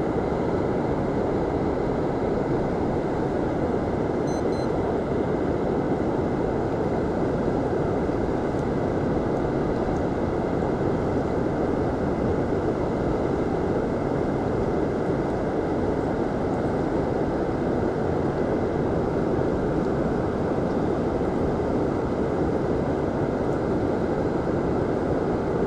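Steady, even rushing noise of moving water, with no swells or breaks.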